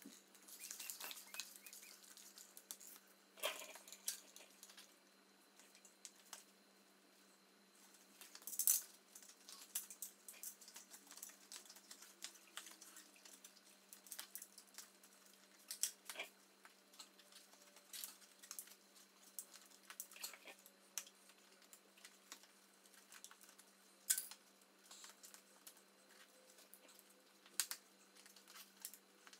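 Scattered light clicks, taps and rattles of a bicycle wheel with a wide tire being handled and fitted at the frame, with a few sharper knocks.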